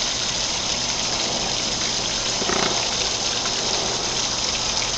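Steady splashing of water falling over a stone waterfall into a garden pond.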